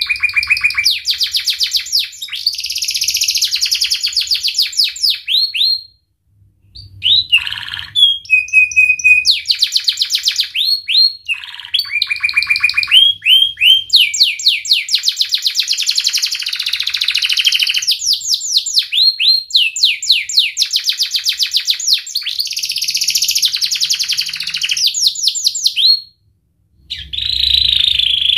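Domestic canary singing: long phrases of fast trills of rapidly repeated high notes, broken by two short pauses, one about six seconds in and one near the end.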